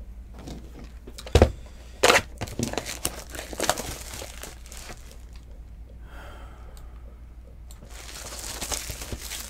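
Hands opening a cardboard box of trading cards and handling its contents: crinkling, rustling and tearing of wrapping and cardboard, with two sharp knocks about a second and a half and two seconds in.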